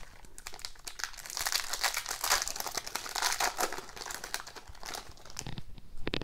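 Plastic wrapper of a hockey card pack crinkling and crackling as it is handled and torn open, busiest in the middle, with a short sharp crackle near the end.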